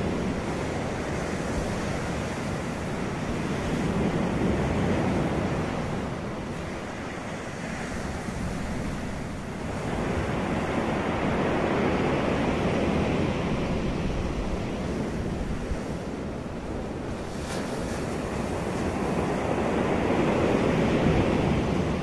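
Ocean surf: waves breaking and washing up the shore as a continuous rush that swells and ebbs in three slow surges, each several seconds long.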